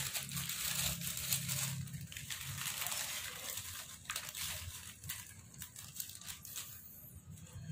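Thin plastic bag crinkling as hands pull fried crackers (kerupuk) out of it onto a plate, with light, irregular crackles of the crackers rustling together.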